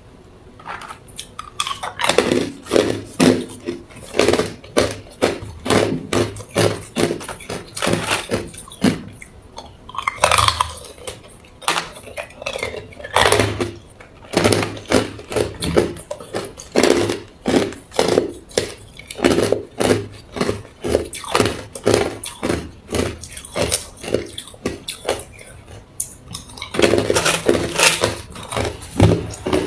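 A person biting and chewing hard clear ice cubes close to the microphone: a rapid run of loud, sharp crunches, several a second, with a short pause partway and a denser burst of crunching near the end.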